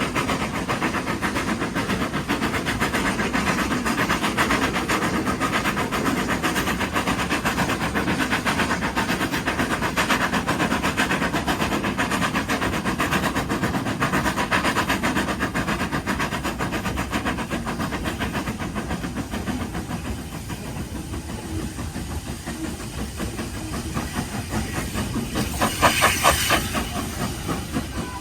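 Hudswell Clarke industrial steam locomotive working hard at low speed up a steep 1 in 13 gradient, exhaust beats steady. It eases somewhat about two-thirds of the way through, and a short burst of steam hiss comes near the end.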